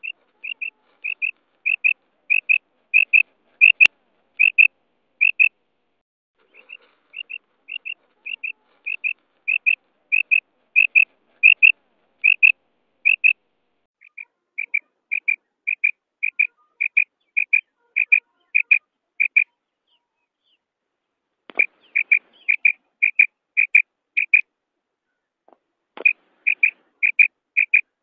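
Female common quail giving its 'krik' call: short high notes repeated about twice a second in runs several seconds long, each run growing louder, with brief pauses between runs. A single sharp click about four seconds in.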